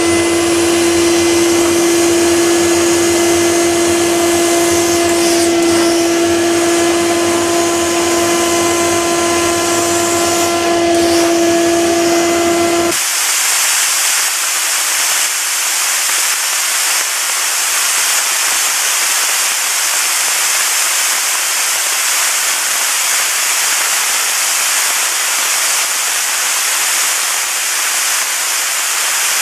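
Steam jets from a commercial steam car-wash machine's spray guns hissing loudly and steadily. For the first half a steady motor hum from the machine runs under the hiss, then cuts off suddenly, leaving the steam hiss alone.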